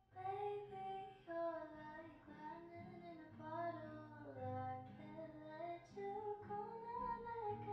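Background music: a soft, high singing voice carrying a slow melody, notes held and gliding gently from one to the next.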